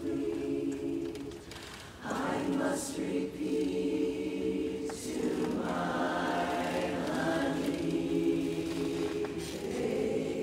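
Women's barbershop chorus singing a cappella in close harmony. Sustained chords, with a short breath between phrases about two seconds in.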